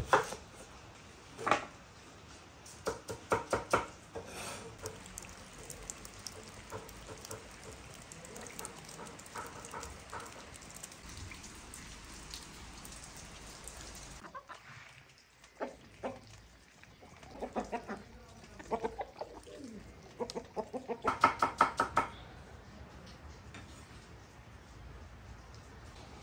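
A few knife chops through onion on a wooden cutting board, followed later by chickens clucking in short runs of calls, loudest near the end.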